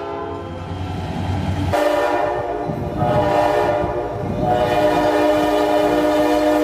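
Diesel freight locomotive's air horn blowing a chord of several steady tones, starting about two seconds in over a low rumble, easing briefly, then held again.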